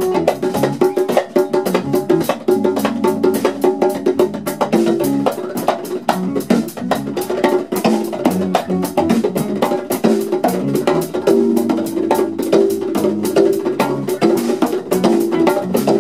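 Live funk band playing an instrumental groove, with busy, rapid percussion from hand-struck electronic drum pads over electric guitar and drums.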